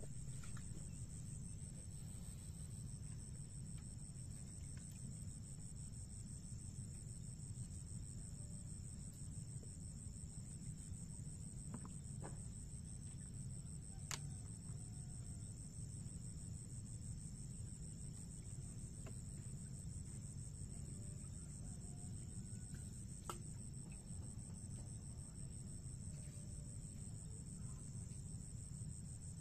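Steady, high-pitched insect chorus, like crickets, over a low steady rumble. Two sharp clicks stand out, the louder one about halfway through.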